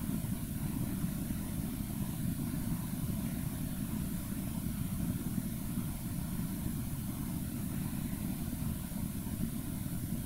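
Steady low rumble of background noise that does not change, with no distinct events.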